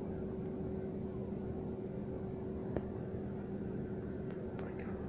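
Steady low background hum holding two constant tones, with one sharp click a little under three seconds in and a few faint ticks near the end.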